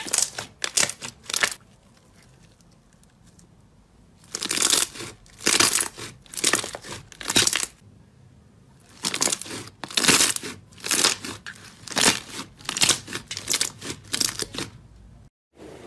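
Hands squeezing and pressing a soft, glossy purple glitter slime, making runs of quick sticky clicks and crackles. They come in three spells with short pauses between.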